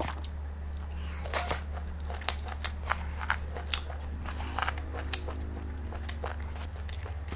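Close-miked eating: chewing and crunching of steamed H'Mông chicken, with irregular sharp clicks and crunches over a steady low hum.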